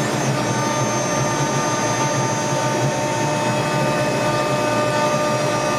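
CAMaster CNC router and its dust collection system running together: a steady rushing noise with several high, steady whines on top.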